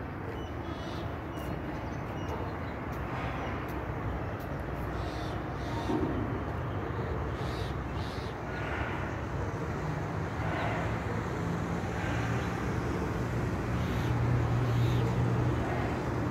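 Steady background rumble of distant traffic, with a low engine hum that builds in the second half and is loudest near the end.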